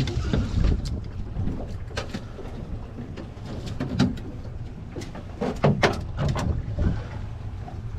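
Low steady rumble of a small fishing boat on the water, with scattered clicks and knocks.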